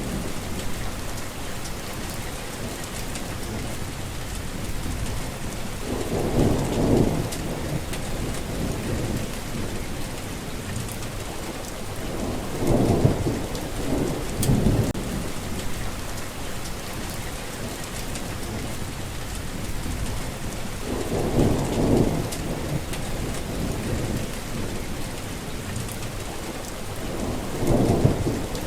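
Steady rainfall hissing, with low rolls of thunder swelling up four times.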